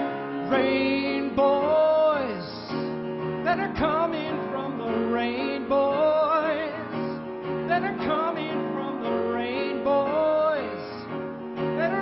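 Music: a slow, gentle song, with a sung or wordless vocal melody holding notes with vibrato over instrumental accompaniment.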